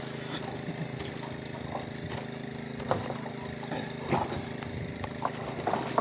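A motor running steadily, with a few short knocks over it.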